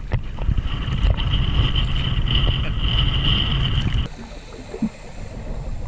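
Wind buffeting the microphone over water on a kayak at sea, with a steady high whine through the first four seconds; the sound cuts off abruptly about four seconds in to a quieter wash of wind and water.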